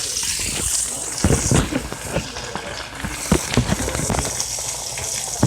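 Steaks frying in a pan, a steady sizzle with scattered knocks and clicks of handling and utensils.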